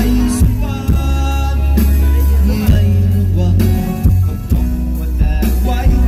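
Live rock band playing through a PA: drum kit hits over a heavy bass guitar line, with electric guitar and a singer's voice.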